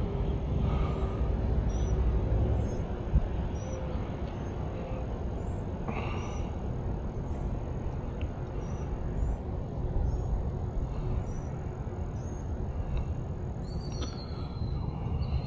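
Outdoor ambience: a steady low rumble with short high chirps repeating about once a second, and a fast high ticking near the end.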